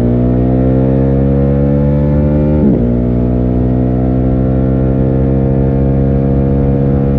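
Ducati Hypermotard 950's 937 cc L-twin engine pulling under acceleration on its stock exhaust, the pitch climbing steadily. There is a quick upshift about two and a half seconds in, after which the engine climbs again. The sound is muffled, heard through a backpack.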